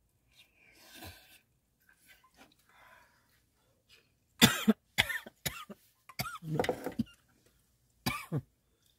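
A woman coughing in a fit of about six sharp coughs, starting about four seconds in, after food has gone down the wrong way while she eats.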